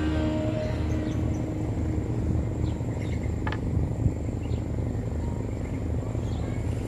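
Steady low rumble of outdoor ambience, with a few faint, short, high insect-like chirps around the middle.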